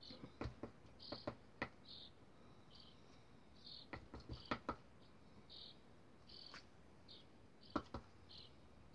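Light taps and knocks of a large bottle top being dabbed in black acrylic ink and pressed onto paper, in small clusters. A faint short high chirp repeats about once a second behind them.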